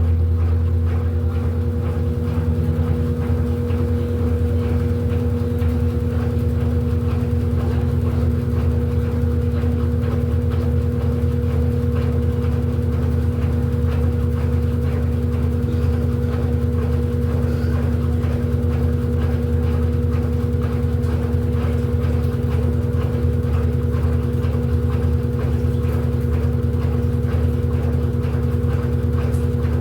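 Electrolux 14 kg washing machine running, a steady loud motor hum that holds even without pauses.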